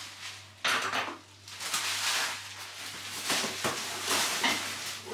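Plastic bag and plastic packaging rustling and crinkling as they are handled and stuffed into a bag. The crinkling starts suddenly about half a second in and goes on in irregular bursts.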